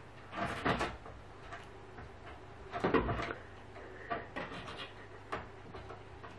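A wooden glass-panelled door knocking and rattling as a cat scrambles on its top edge. There is a cluster of knocks about half a second in, the loudest clatter about three seconds in, and lighter knocks later.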